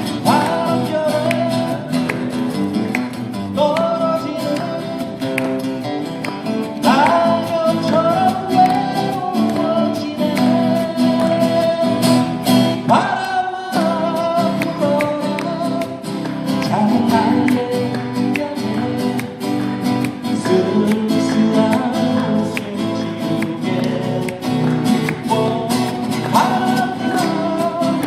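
Live band music: guitars playing chords under a held, sliding melody line.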